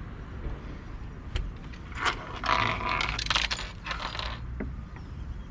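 Small metal pieces clinking and jingling in a quick run of clicks that starts about two seconds in and lasts about two seconds.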